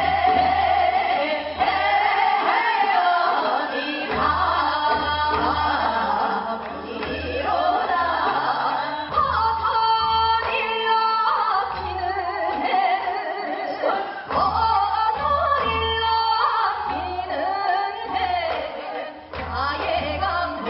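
Women singing Seodo sori, the folk song style of Korea's northwestern provinces, in a wavering, heavily vibrated voice, with traditional Korean instruments accompanying.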